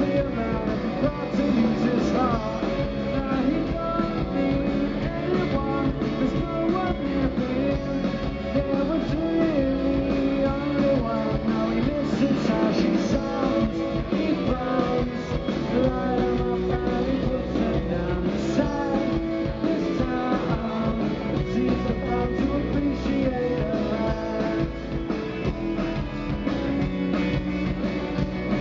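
Live rock band playing: electric guitars, bass guitar and drum kit, with a male lead vocal singing over them.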